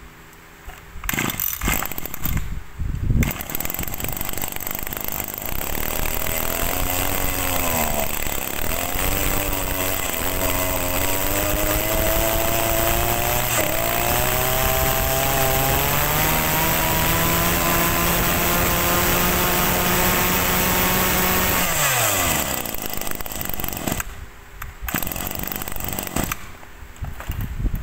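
Maruyama MB2300 brush cutter's small two-stroke engine starts up in the first few seconds, then is revved higher in steps by hand at the carburettor. It holds a high, steady speed, then winds down sharply about 22 seconds in.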